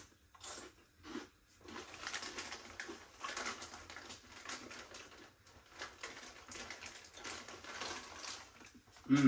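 Crinkly foil snack packet rustling and crackling in repeated handlings as crisps are rummaged out of the bag. A short voiced murmur comes right at the end.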